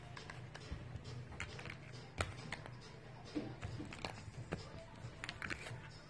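Scattered light taps and knocks of plastic toys and wooden blocks as a cockatoo shoves them about with its beak and feet, the sharpest knock about two seconds in.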